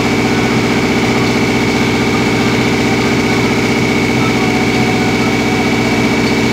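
An engine running at a steady idle, a constant drone with a thin high whine above it that never changes pitch or level.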